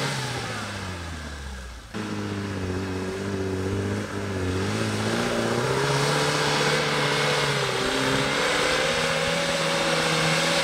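Off-road 4x4's engine revving. Its pitch falls over the first two seconds and breaks off abruptly, then the engine picks up again, dipping and rising before holding steady and high.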